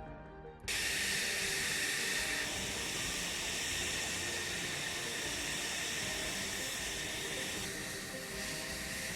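Music cuts out and a steady jet aircraft noise starts abruptly, a loud even hiss with a high whine that eases a couple of seconds in.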